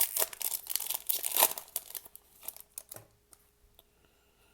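Foil trading-card pack wrapper being torn open and crinkled, a dense crackle for the first two seconds that thins out and stops about three seconds in.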